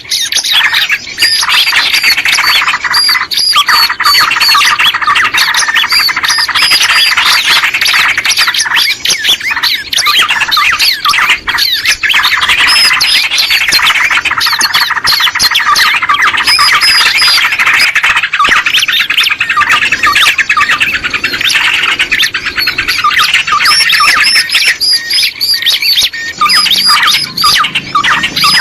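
Dense chorus of many small birds chirping and calling at once, a steady loud mass of quick high notes without a break: a lure call recording for attracting small birds.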